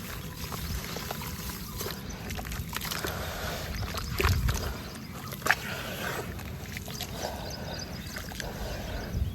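Small chunks of white sand-cement crumbling in water: a continuous fine crackling with sloshing, a heavier thud about four seconds in and a sharp click a second later.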